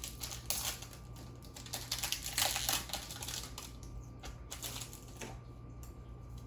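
Trading cards and their foil booster-pack wrapper being handled: irregular crinkling, rustling and card flicks, busiest around two to three seconds in.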